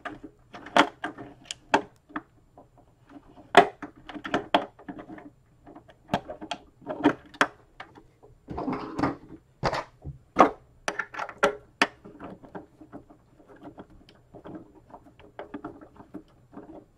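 Hands fitting a screw and washer through a plastic proton pack shell into a clip nut on the motherboard bracket, with the parts knocked and shifted while handling: irregular clicks and knocks.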